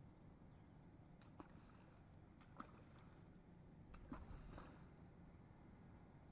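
Near silence with a few faint sharp splashes, as balls of flour-dough groundbait land in the lake.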